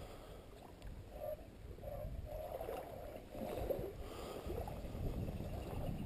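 Water sloshing and splashing, with a steady low rumble of wind and handling noise on the microphone.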